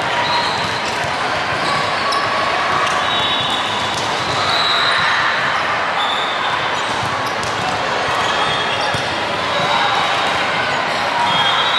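Volleyball gym din during a rally: volleyballs being struck and bouncing on a hardwood floor over the steady chatter of players and spectators in a large hall.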